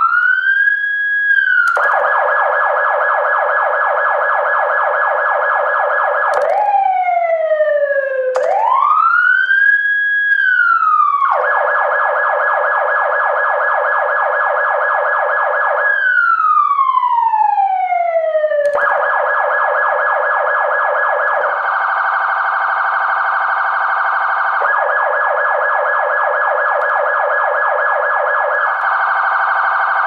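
Electronic emergency-vehicle siren cycling through its tones: the pitch sweeps up and holds, breaks into a very fast warble, then glides down and sweeps up again several times. A different pulsing tone comes in for a few seconds about two thirds of the way through.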